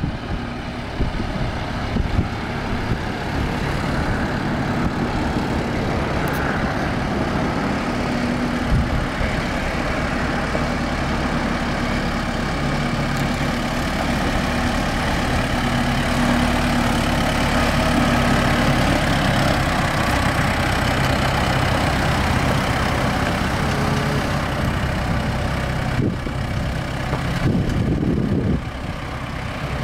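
Four-cylinder turbo diesel engine of a 2022 Kubota M4-061 tractor running steadily as the tractor drives slowly across gravel.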